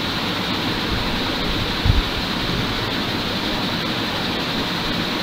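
Steady hiss of background noise, with one brief low thump about two seconds in.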